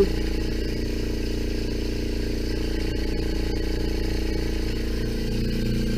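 Small electric vacuum pump running with a steady, unchanging hum, evacuating a homemade plexiglass vacuum chamber through a hose. It cannot pull a strong vacuum, which the owner puts down to an air leak somewhere in the chamber.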